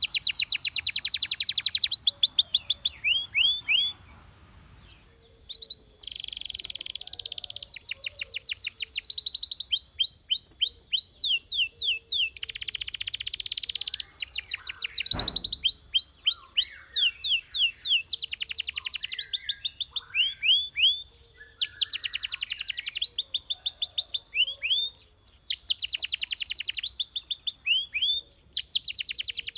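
Belgian canary singing: phrases of fast trills made of rapidly repeated high notes, with a pause of about two seconds about four seconds in. A single click sounds about halfway through.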